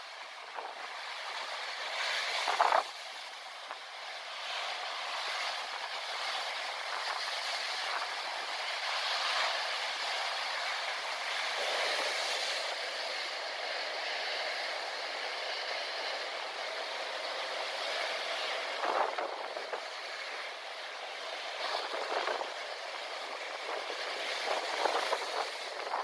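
Rough storm surf: waves breaking against a concrete jetty and rocks, with a steady wash of foam and spray. Sharper splashes stand out about two and a half seconds in and several times in the last third.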